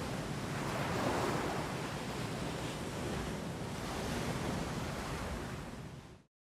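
Waves washing in slow swells, an even rushing noise that fades out about six seconds in.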